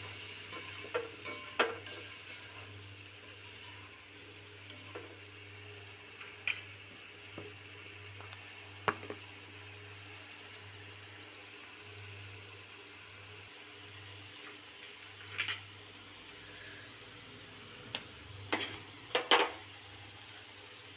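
A steel spoon stirring cream into a tomato gravy in a steel pan. The spoon scrapes and clinks against the metal in scattered sharp knocks, most of them near the start and again near the end. Between them the gravy sizzles faintly over a low steady hum.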